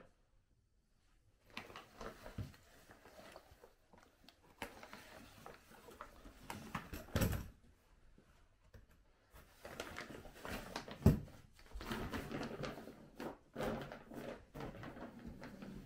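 A folding dog cot being unpacked and laid out by hand: its fabric rustling and its metal frame legs knocking and clinking. A sharp knock about eleven seconds in is the loudest sound, with a smaller one about seven seconds in.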